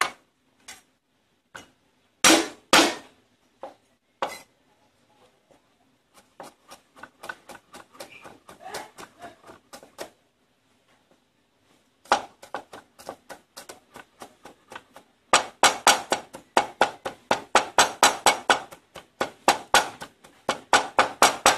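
Cleaver chopping on a wooden chopping board, mincing garlic and red chillies: a few separate knocks at first, then runs of rapid, even chopping at about five strokes a second, loudest over the last six seconds.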